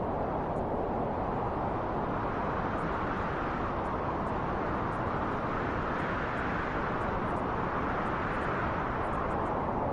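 Steady rushing wind, a low even noise that slowly swells through the middle and eases off near the end.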